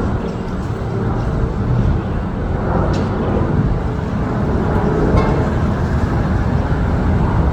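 Steady low rumble of outdoor noise, with no distinct events.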